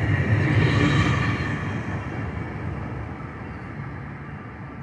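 Metrolink bilevel passenger cars rolling past on the rails as the train pulls out of the station, a steady wheel-on-rail rumble that fades as the last car moves away.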